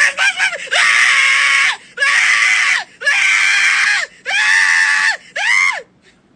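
A voice screaming: a few short quick cries, then five long, loud, high-pitched shrieks of about a second each, each sliding up at the start and down at the end. The screaming stops near the end.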